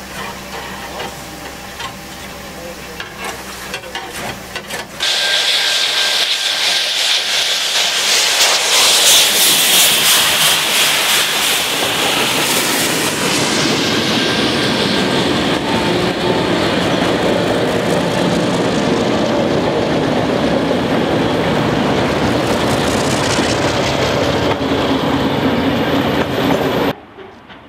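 Steam locomotive 3801, a NSW C38 class Pacific, passes close by. A loud rush of steam hiss begins suddenly about five seconds in, gives way to the rumble and clickety-clack of its passenger carriages rolling past, and drops away abruptly just before the end.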